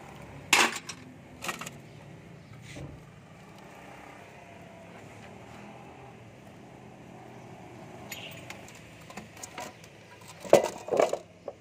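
Metal clinks and clanks from a Canter truck engine being dismantled: two sharp clanks in the first couple of seconds, then a cluster of louder clanks near the end as the clutch disc is pulled off the flywheel.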